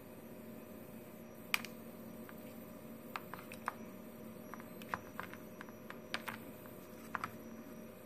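About a dozen light, irregularly spaced clicks, starting about a second and a half in, over a faint steady hum.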